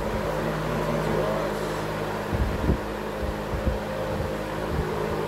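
1960s Emerson Electric 20-inch reversible box fan running steadily on high speed: a constant motor hum under the rush of air from the blades, with a few low thumps about halfway through.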